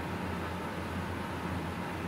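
Steady low hum with an even hiss: background room tone.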